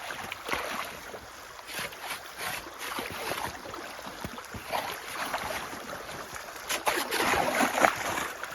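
Slushy meltwater in a flooded ditch, splashing and sloshing irregularly as ice and slush are stirred. The splashing grows louder for about a second near the end.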